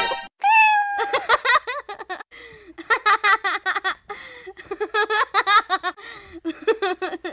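A person giggling in quick repeated bursts, after a short cry that falls slightly in pitch near the start.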